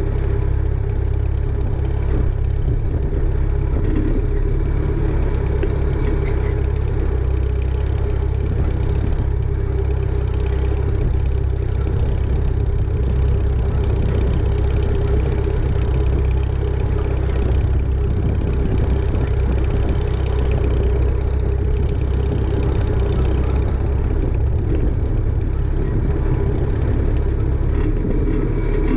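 Farmall tractor engine running steadily, heard close up from on the tractor as it drives along.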